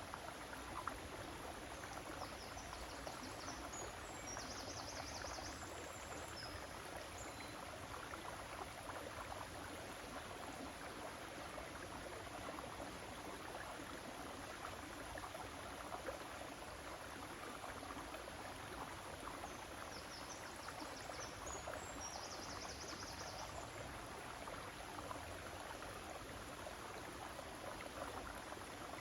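River water flowing, a steady rushing, with a short burst of faint high chirping heard twice over it.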